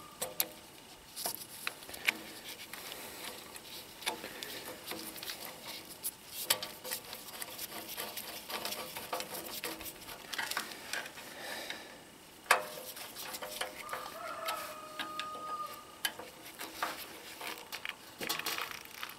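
Scattered light metallic clicks and taps of a screwdriver working on a small gas engine's carburetor as it is fastened back onto the engine. A chicken calls in the background about three-quarters of the way through.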